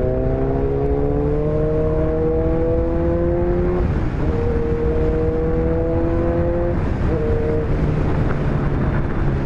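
Kawasaki Ninja 1000's inline-four engine under way, revs climbing steadily for about four seconds, then the pitch breaks at a gear change, holds, and breaks again at a second change about seven seconds in, over a steady rush of wind and road noise.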